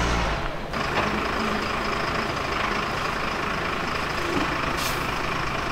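Converted school bus's engine running as the bus is maneuvered slowly to park level, heavy low rumble in the first half second, then a steady running sound. A brief high hiss near the end.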